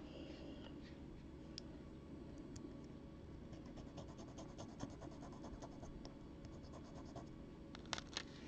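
A small metal jewelry piece rubbed against a black touchstone: faint, quick scratching strokes, made to leave metal streaks for an acid test for silver.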